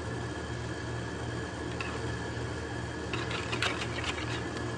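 Wire balloon whisk stirring a runny dough batter in a plastic bowl, with a few light clicks and scrapes of the wires against the bowl about three to four seconds in, over a steady low hum.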